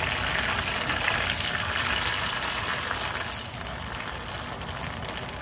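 Dry cellophane (mung bean) noodles sizzling and crackling as they puff up in hot oil in a small saucepan. The dense crackle eases a little in the second half.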